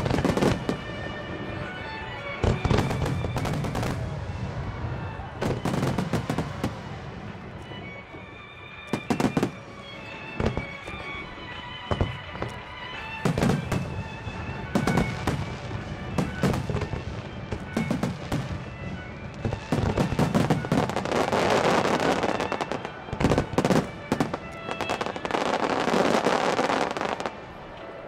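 Aerial fireworks bursting again and again, bang after bang, over music played for the show. Near the end come two long stretches of dense crackling.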